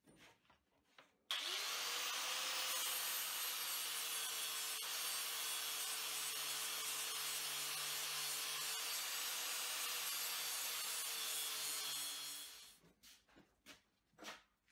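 Angle grinder with a flap disc grinding welded steel: it starts suddenly about a second in, its motor whine climbing quickly to speed, then runs steadily with the grinding noise until it dies away near the end. A few faint clicks follow.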